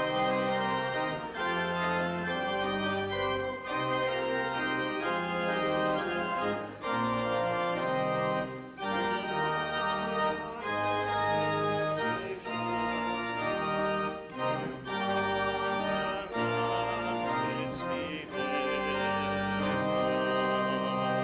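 Church organ playing slow, held chords that change every second or two. The last chord releases and the sound stops sharply near the end.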